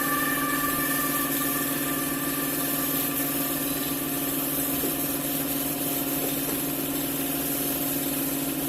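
Air compressor for a paint spray gun running steadily, a constant motor hum over a faint hiss.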